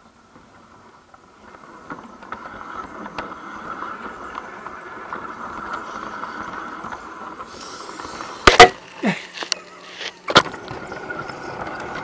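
LGB garden-scale model train running along its track, a steady motor hum and wheel rumble with light regular ticks about twice a second. A few loud knocks and a clatter come about two-thirds of the way in, and the motor tone stops at the last one: the sign of the iPod mounted on the train hitting the too-low tunnel arch.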